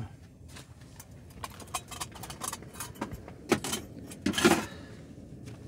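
Small clicks, light rattles and rustles of fishing tackle being handled, with a louder rustling scrape at about three and a half seconds and again around four and a half seconds.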